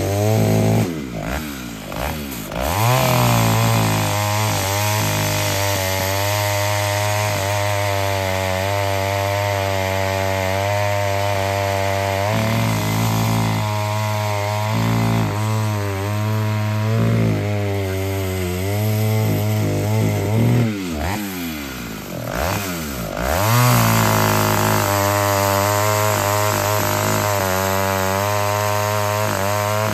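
Taiga 245 petrol two-stroke chainsaw running hard, cutting wood. Twice, near the start and again about two-thirds through, the engine speed drops sharply and climbs back up.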